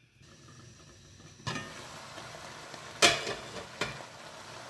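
Carrots simmering in water in an aluminium pan, a steady bubbling hiss that starts suddenly about a second and a half in. A loud, sharp metal clank comes about three seconds in, and a lighter one follows shortly after.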